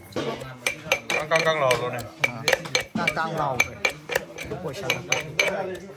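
Cutlery and dishes clinking over and over, many quick sharp clinks, with people's voices talking alongside.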